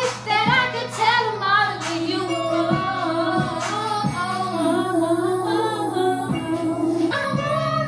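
A love song: a woman's voice singing over backing music with a slow, regular beat.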